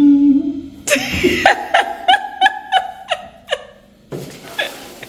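A person laughing: a held low vocal sound, then a run of about eight short, evenly spaced "ha" pulses that die away a little past halfway.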